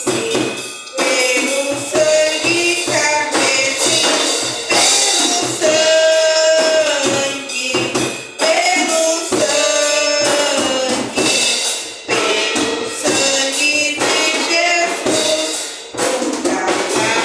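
Live worship music: a singing voice over a band, with tambourine and drums keeping a steady beat.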